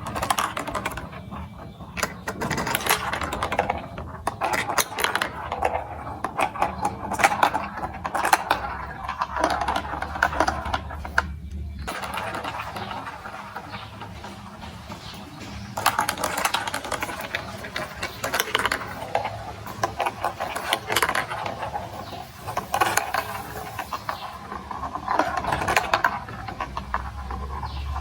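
Rapid plastic clicking and clattering from a marble run made of plastic building blocks, in busy spells with a calmer stretch about halfway through.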